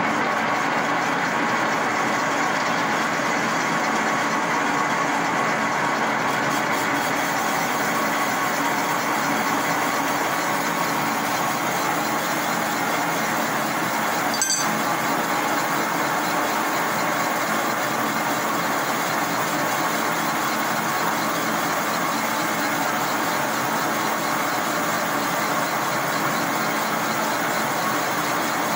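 Cylinder-boring machine running steadily with its boring bar in an engine-block cylinder, a constant mechanical noise with a faint steady hum in it. There is a single short tick about halfway through.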